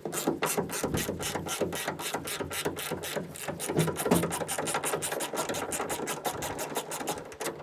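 Hand ratchet with a T45 Torx bit clicking in a fast, even rhythm, about seven clicks a second, as a bolt is backed out.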